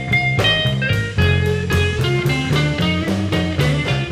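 Blues band playing live: a Stratocaster-style electric guitar plays a lead line of quick notes over bass and drums.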